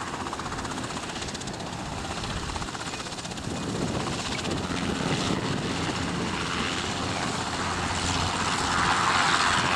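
Jet roar of a B-52H bomber's eight TF33 turbofan engines passing overhead on a flyby, growing louder toward the end.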